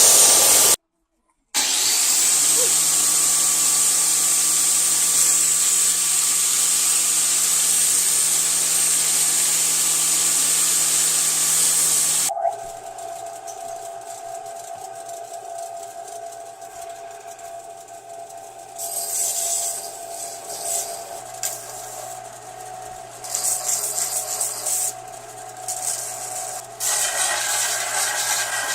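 Angle grinder running against steel, smoothing down welded pipe pieces: a loud, steady hissing grind over the motor's hum for about ten seconds. Near the middle it cuts to a quieter steady hum with intermittent scraping on metal.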